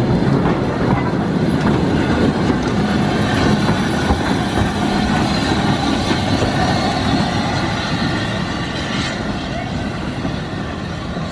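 Saddle-tank steam locomotive working steam as it pulls open passenger wagons slowly past along harbourside rails. It passes close by and begins to fade slightly near the end as it moves away.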